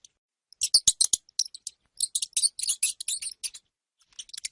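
Hamster squeaking: quick runs of short, high-pitched squeaks in three bursts, with a few faint clicks about a second in.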